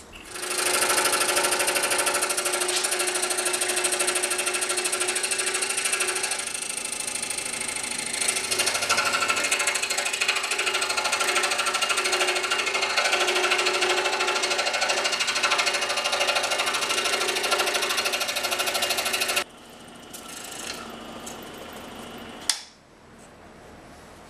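Scroll saw running steadily, its fine blade cutting through quarter-inch oak. It stops abruptly about nineteen seconds in, followed by faint handling sounds and a sharp click.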